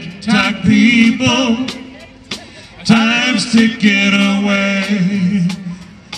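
Live amateur rock band playing through a PA: electric guitars and drums, with a male lead vocal singing over them.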